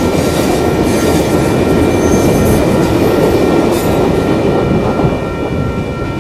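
Passenger cars of a Kansas City Southern business train rolling past and away, their wheels rumbling on the rail with a few thin steady ringing tones over the noise. The sound stays loud and eases only slightly near the end.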